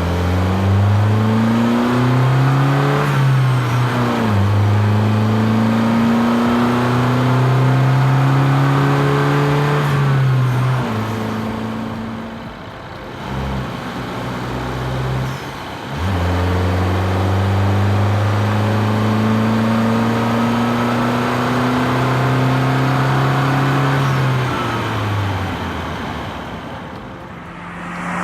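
BMW 114i (E87) 1.6-litre four-cylinder petrol engine pulling hard through the gears, its pitch climbing and stepping down at each upshift. About ten seconds in it backs off and runs lower for a few seconds, then accelerates again through the gears until easing off near the end.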